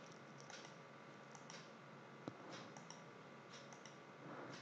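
Near silence with faint, scattered clicks of a computer mouse as slides are moved through; one click a little over two seconds in is sharper than the rest.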